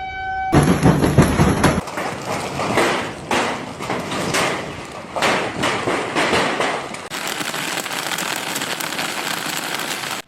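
A siren's steady tone cuts off about half a second in. Then storm precipitation pelts hard surfaces: dense pattering with irregular sharper strikes, turning into a steady heavy hiss of rain from about seven seconds in.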